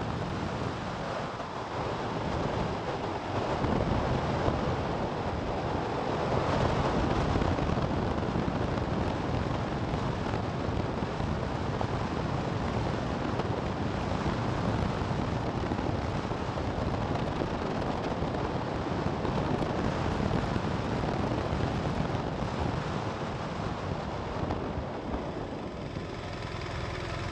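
Steady wind rush over the camera microphone of a moving motorcycle at about 70 km/h. It eases near the end as the bike slows.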